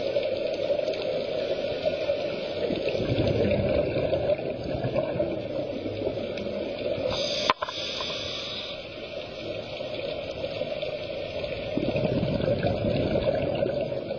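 Muffled underwater noise heard through a camera housing, with scuba divers' exhaled regulator bubbles rising in surges. There is a single sharp click about seven and a half seconds in.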